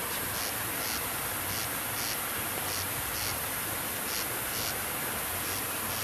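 Shallow stream flowing over a rock bed, a steady hiss of running water, with an insect chirping in short high pulses about twice a second.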